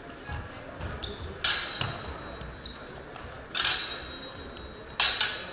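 Steel longsword blades clashing in a fencing bout: four sharp metallic strikes, two in quick succession about a second and a half in, another past the middle and one near the end, each leaving a short high ring.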